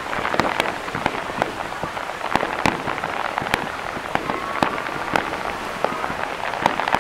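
Fireworks display: a dense, continuous crackling from bursting shells, with sharp pops at irregular intervals, several a second.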